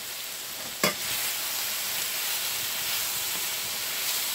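Sliced onions and green and red bell peppers sizzling steadily in hot oil in a metal skillet as they are stirred with dry spices added to toast, with one sharp clack of the utensil against the pan a little under a second in.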